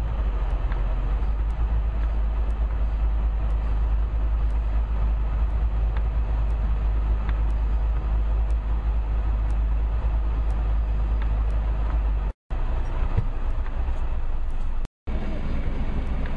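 Land Rover engines running in the mud: a steady low rumble with no clear revving, broken twice near the end by a brief dropout.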